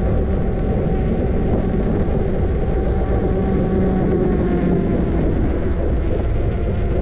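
Steady noise of an e-bike being ridden: wind rushing over the microphone, with a faint steady hum underneath.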